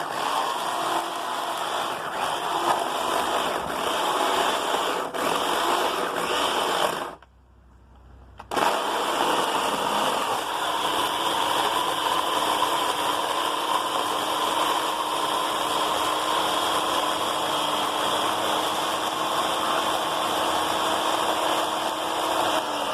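Harbor Freight electric chainsaw running steadily, cutting through a rack of firewood logs. About seven seconds in the motor stops for a second or so, then starts again and runs on steadily.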